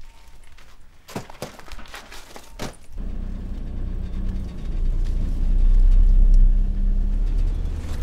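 A few clicks and knocks in the cab of a small van, then about three seconds in the van's engine starts and runs steadily, getting louder through the middle as it revs.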